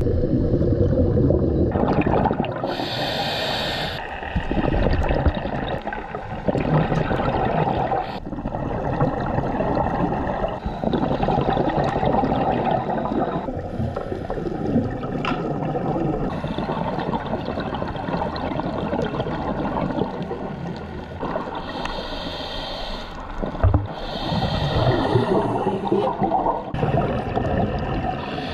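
A scuba diver breathing through a regulator, heard underwater: a few sharp hissing inhalations and long gurgling rushes of exhaled bubbles.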